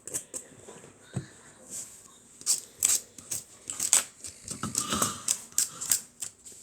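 Irregular sharp clicks and crackles of a tool scraping and picking at a Galaxy S7's cracked, flaking glass back panel and the adhesive holding it, bunched into two runs in the second half.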